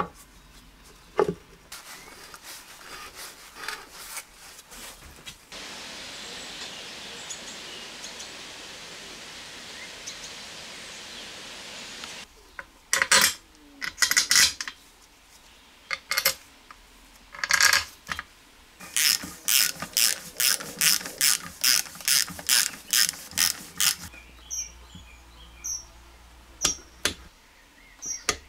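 Ratchet torque wrench clicking as it tightens the bolts on an engine's crankcase cover. The clicks come in bursts, with a regular run of about four a second past the middle. Earlier there are scattered clicks and a steady hiss lasting several seconds.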